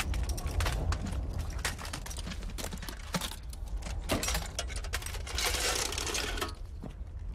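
Metallic clicks and clinks of a steel ammunition can being handled and a belt of machine-gun cartridges being pulled and rattled, with a longer rustling rattle about five seconds in. A low steady rumble sits underneath.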